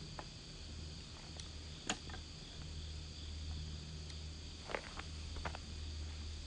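Wood fire crackling, with a few sharp pops: the loudest about two seconds in and a couple more near the end, over a steady low rumble and hiss.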